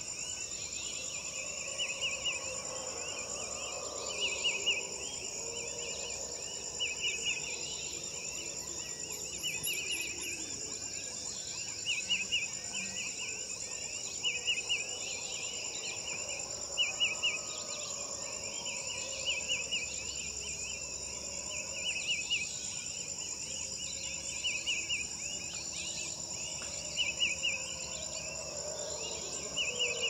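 Rain forest ambience: a steady high-pitched insect drone, with a short chirping trill repeating every two to three seconds.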